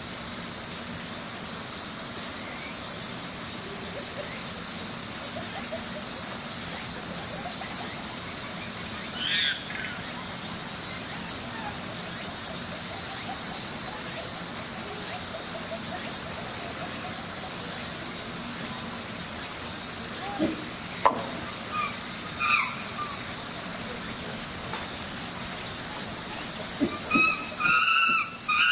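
Steady high-pitched hiss of cicadas under faint, indistinct voices, with a few brief squeals. Near the end comes a quick run of short high cries.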